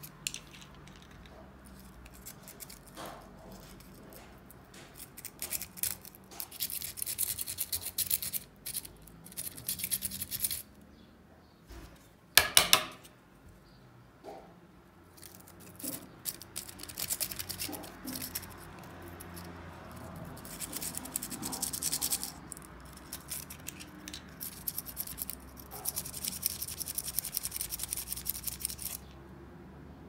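Hands working the plastic housing of a VW Passat B5 brake pedal switch: stretches of scratching and rubbing of plastic parts, with one loud click about twelve seconds in.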